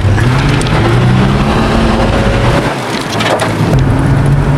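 Holden Commodore's engine pulling under acceleration, its note rising for about two and a half seconds, then dropping at a gear change and climbing again.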